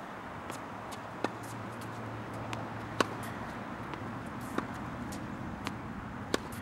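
Tennis ball being hit with a racket and bouncing on an outdoor hard court in a rally: sharp pops about every one and a half seconds, with quieter bounces between them. A low hum runs in the background through the middle.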